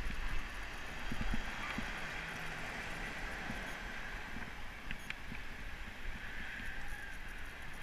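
Road bike riding on tarmac, heard from a helmet-mounted GoPro: steady tyre and wind noise with a low rumble and a few light clicks and rattles from the bike.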